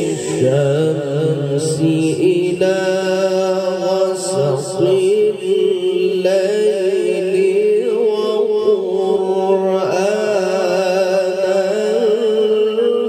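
A man's voice chanting a melodic Quran recitation (tilawah) into a microphone and amplified through a PA system, holding long notes with wavering ornaments.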